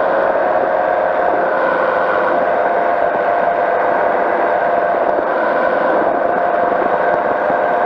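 Powered parachute's engine and propeller running steadily in flight, a constant drone with a few steady tones and no change in pitch.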